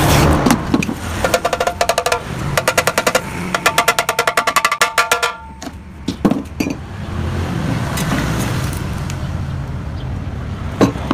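Rapid metal-on-metal taps, about nine a second in three runs, each ringing at the same clear pitches: a hammer working a steel motorcycle exhaust muffler. A steady low hum follows in the second half, with one sharp click near the end.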